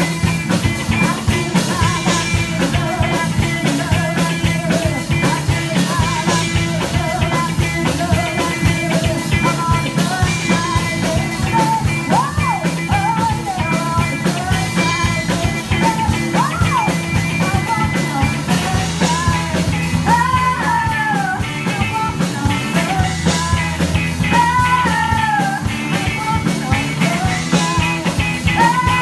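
Live rock band playing, with women's lead vocals over electric guitars and a drum kit keeping a steady beat.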